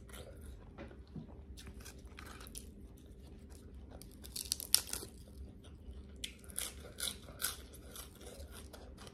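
Close-miked chewing of crisp food, lettuce and pork cracklings eaten with a spicy noodle salad. Sharp crunches come in clusters, the loudest between four and five seconds in, and more around seven seconds.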